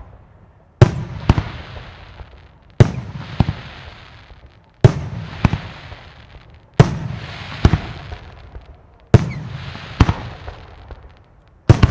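Aerial firework shells bursting in steady succession: six loud bangs about two seconds apart, each followed by a smaller second crack and dying away over a second or so.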